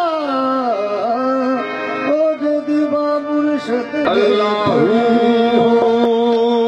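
Qawwali ensemble playing harmonium and tabla: a voice glides down in pitch at the start, then the music settles onto one steady held note about two thirds in.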